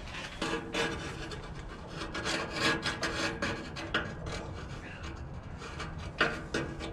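Metal grill parts scraping and rubbing in short, irregular strokes as a replacement burner is worked into place inside a Ducane gas grill, with a louder clatter a little past 6 seconds.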